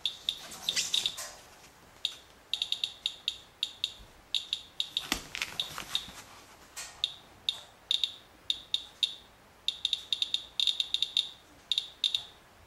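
Radalert Inspector Geiger counter chirping at random intervals, several a second and sometimes in quick clusters, each chirp a detected count from a rain-wiped paper-towel sample reading about 0.04 mR/hr. A brief rustle comes about five seconds in.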